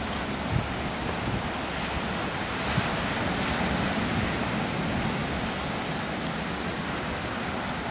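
Steady noise of breaking surf mixed with wind buffeting the microphone, with a couple of brief faint knocks.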